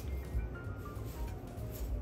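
Background music: a light melody of short notes stepping from pitch to pitch.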